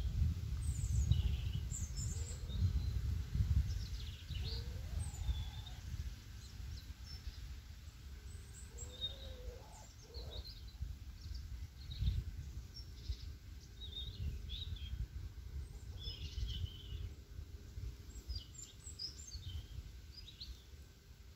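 Low rumble on the microphone, strongest in the first few seconds, with scattered short high chirps of small birds throughout. A soft low call comes about nine seconds in.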